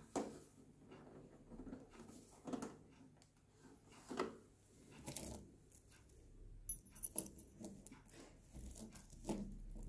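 Faint, scattered clicks and scrapes of a screwdriver and the quartz heater's metal casing being handled during reassembly.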